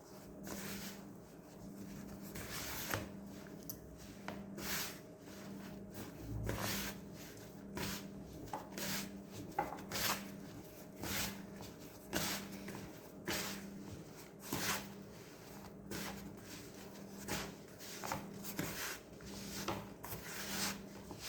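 Soft yeast dough for ensaymada being mixed and worked by hand in a bowl: rubbing, squishing strokes about once a second.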